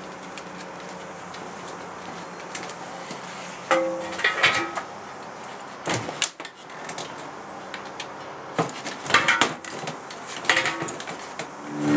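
Handling noise from an electric bass guitar being picked up and settled on the lap: scattered knocks and clicks, with a few short plucked string notes.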